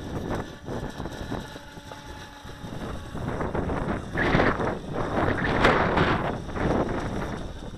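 Small RC speed boat with a brushed electric motor running at speed across choppy water, getting louder in surges a little past the middle. Wind rumbles on the microphone throughout.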